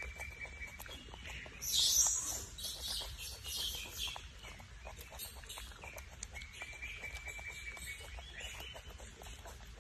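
Soft, rapid smacking clicks of a baby macaque suckling at its mother's breast. Birds chirp in the background. A burst of high chirping about two seconds in is the loudest sound, and a thin steady whistle comes again later.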